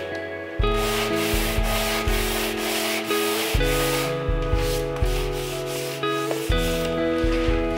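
Hand sanding with 180-grit paper on a sanding block, rubbed back and forth over painted bodywork to smooth out a harsh paint edge, with brief pauses between strokes. Background music with a steady beat and sustained chords plays underneath.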